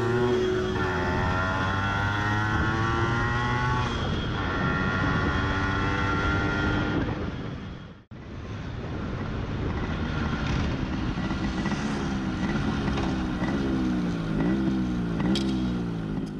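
Motorcycle engine running under way, its pitch climbing steadily as it accelerates. About halfway through the sound cuts out abruptly for an instant, then comes back, and the engine's pitch rises and falls several times near the end.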